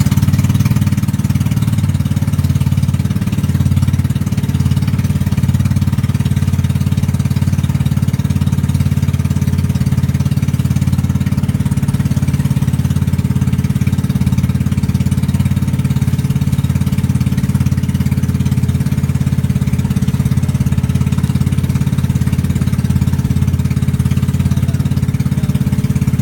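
A small boat's engine running steadily while under way, a loud, even low drone with a fast pulse that does not change.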